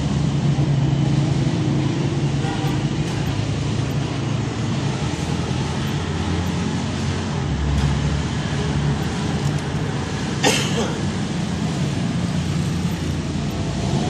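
A steady engine hum, with a single sharp clink of a tool on metal about ten and a half seconds in.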